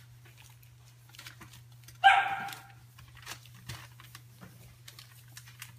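Stabyhoun puppy giving one short, high bark about two seconds in, amid faint scratching clicks from the litter shifting about. A steady low hum runs underneath.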